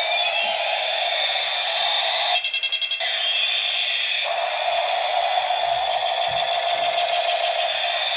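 Toy electric helicopter's electronic sound chip playing tinny, siren-like effects, with tones sliding up and down over a steady electronic drone. About two and a half seconds in there is a quick run of about ten rapid beeps, then the wailing tones resume.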